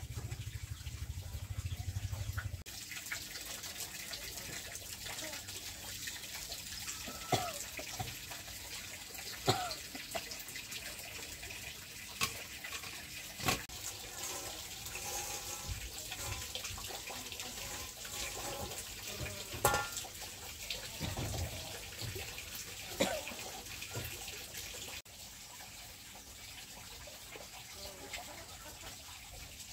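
Water running and splashing, with scattered clicks and knocks through it; it becomes quieter a few seconds before the end.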